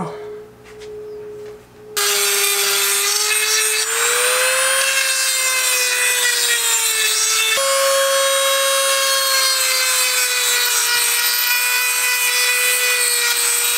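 Dremel rotary tool grinding into the turbo's exhaust housing, porting out the wastegate flap hole. The motor runs with a fainter steady whine at first; about two seconds in the bit bites and it turns into a loud grinding whine with a rough rasp, its pitch wandering up and down with the load.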